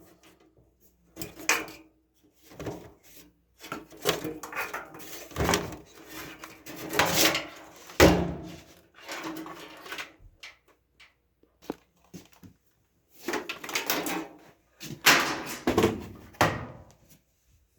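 Parts of a front-load washer being handled and pulled off during disassembly: irregular knocks, clicks and scrapes, with a sharp bang about eight seconds in and a busy run of knocking near the end.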